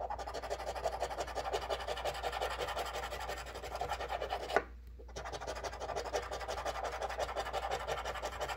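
A coin scraping the scratch-off coating from a paper lottery ticket in rapid back-and-forth strokes, with a short pause about halfway through.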